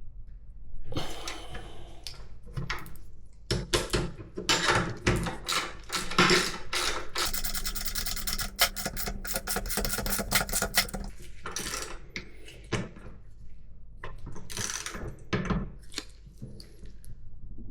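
Workshop assembly sounds of metal motorcycle parts and hand tools being handled, knocked and set down. About seven seconds in comes a few seconds of rapid, evenly spaced clicking.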